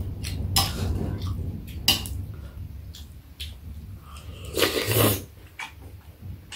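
Chopsticks and a spoon clicking against a metal serving dish and bowls during a meal, with a few sharp clinks spread out and a louder noisy stretch of eating about two-thirds of the way in.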